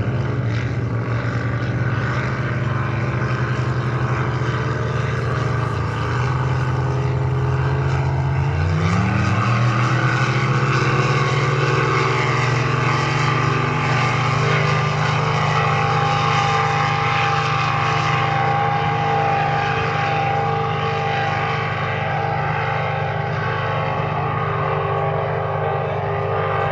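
Engines of two racing boats running hard side by side, a loud steady engine note; about nine seconds in the pitch climbs and then holds higher.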